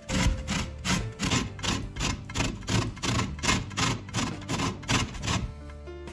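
An orange's peel being zested on the fine side of a stainless steel box grater: rhythmic rasping strokes, about three a second, easing off briefly near the end.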